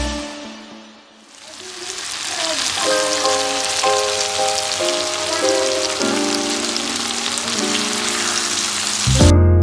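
Sliced zucchini and onion sizzling as they fry in a pan, an even hiss with soft sustained music chords under it. Louder music comes back in near the end.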